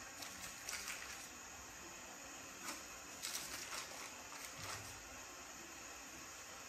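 Faint crinkling of baking paper and light handling noises as soft round discs of biscuit dough are lifted off the paper, a few short crackles spread through, over a steady low hiss.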